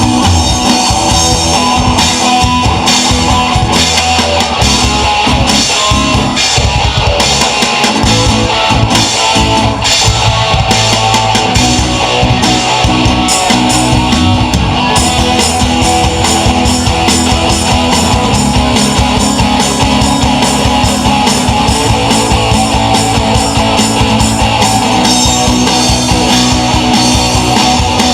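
Live band playing loud at a sound check: electric guitar over a drum kit beat.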